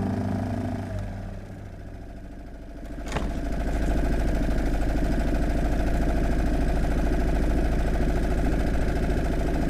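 Small outboard motor idling along steadily, pushing the boat through shallow water. It comes in about three seconds in after music fades out in the first second.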